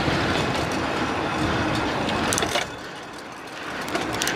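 Mountain bike rolling over paving stones: a steady rumble and rattle from the tyres and frame, which eases after about two and a half seconds.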